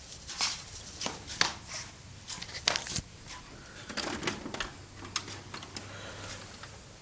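Irregular sharp clicks and light knocks, several a second and uneven in loudness, like small hard objects being handled.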